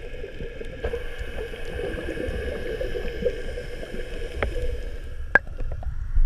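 Muffled underwater sound: a scuba diver's bubbles gurgling over a low rumble, with a steady high whine behind it. Sharp clicks come near the end, and the whine fades as the camera rises to the surface.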